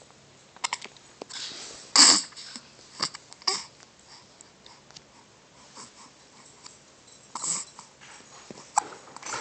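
A baby hiccupping and making wet, breathy mouth sounds while blowing spit bubbles: short, irregular bursts and clicks, the loudest about two seconds in.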